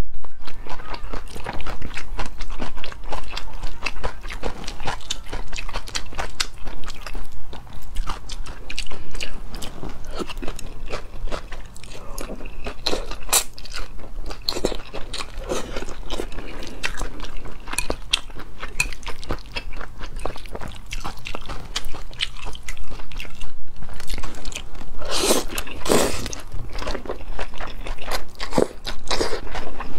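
Close-miked eating of cold sesame-sauce mianpi noodles with shredded cucumber and carrot: wet chewing, crunching and noodles being slurped in, with dense mouth clicks throughout. There are a couple of louder bursts near the end.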